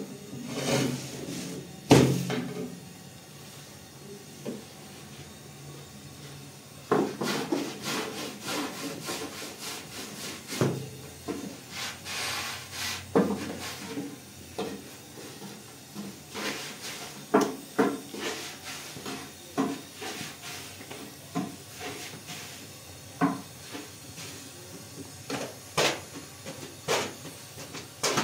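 Irregular rubbing and scraping strokes on a hard surface with sharp knocks between them, starting about seven seconds in after a single knock near the start.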